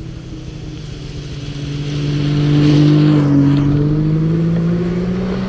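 Snowmobile engine running, growing louder to a peak about halfway through and then fading, its pitch sagging slightly and then climbing again.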